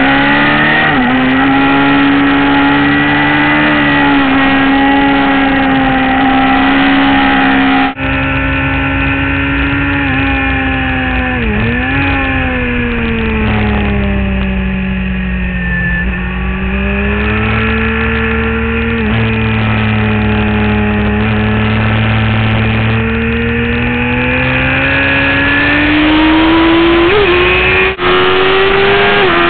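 Suzuki GSX-R sportbike's inline-four engine running hard at high revs, with wind rush. The engine pitch dips and recovers quickly about a third of the way in, falls slowly through the middle and climbs steadily near the end, with two very brief dropouts in the sound.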